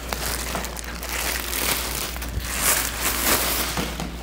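Packing material crinkling and rustling in irregular bursts as a large plaque is lifted out of its shipping box.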